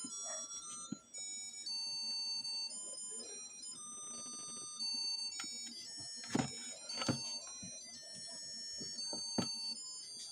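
A tinny electronic melody of thin, high beeping notes, like a music chip's jingle, with a few sharp clicks in the second half.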